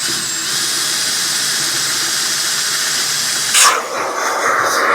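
Steady hiss of a pressurised spray cleaning a part, cutting in abruptly and shifting in tone about three and a half seconds in as the jet moves.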